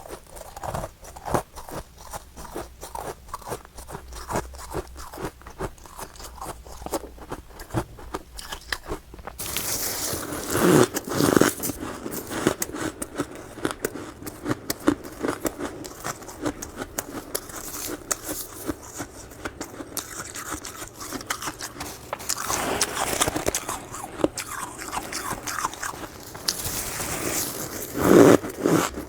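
Freezer frost (powdery snow-ice) being bitten and chewed close to the microphone: a steady run of fine, rapid crackling crunches, then louder crunching bites about a third of the way in, again around three quarters through and once more near the end.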